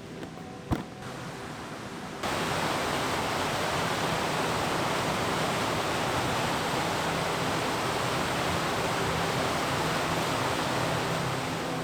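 Whitewater of river rapids rushing in a steady, loud, even wash that cuts in abruptly about two seconds in. Before it there is a quieter stretch with a single sharp click.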